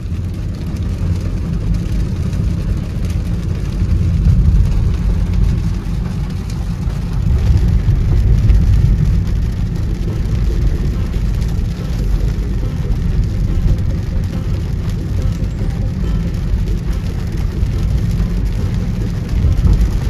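A car driving in rain, heard from inside the cabin: a steady low rumble of road and engine under a hiss of rain and wet tyres.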